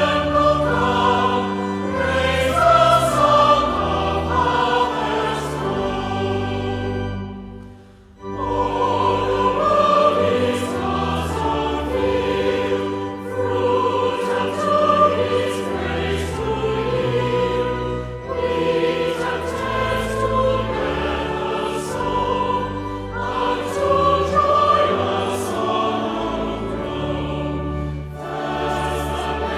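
A choir singing a hymn in sustained chords, with a short pause between phrases about seven or eight seconds in.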